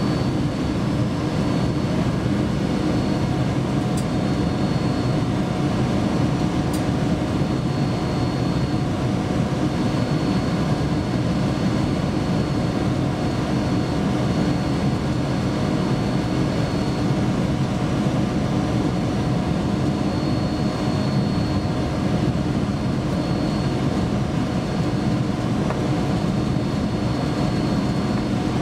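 Steady running noise inside the cab of a ČD class 340 electric locomotive travelling along the track: an even low drone with a faint high whine. Two sharp clicks come about 4 and 7 seconds in.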